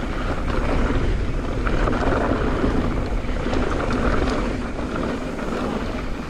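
Mountain bike riding down a dirt trail: wind rushing over the microphone over the steady rumble of the tyres and the bike, with a few light rattles.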